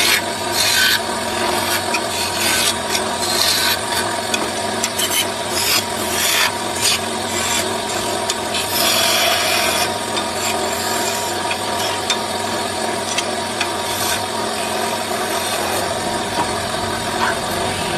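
Hand tool rasping against wood in irregular scraping strokes.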